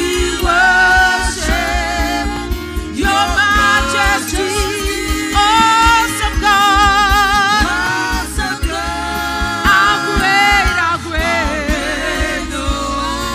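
Live gospel worship music: a voice sings long, wavering held notes over a band with a steady bass pulse.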